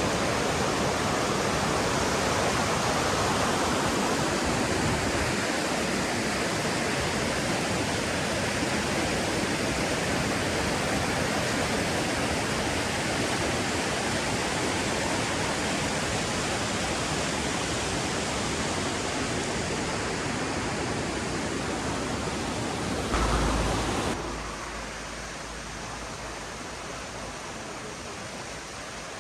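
Rushing water of a mountain stream, a steady dense rush. About 23 s in there is a brief low thud, then the rush continues noticeably quieter.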